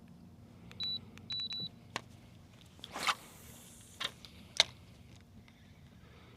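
Three short high electronic beeps about a second in, the last two close together, then a few sharp knocks and clicks. The sharpest knock comes past the middle.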